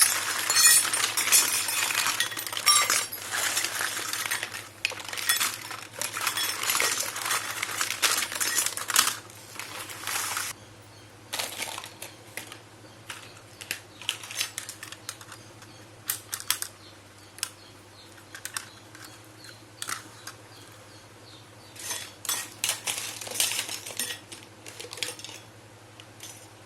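Small toy kitchen pieces clinking and clicking together as they are handled, a busy run of clinks for about the first ten seconds, then scattered clicks with another short flurry near the end.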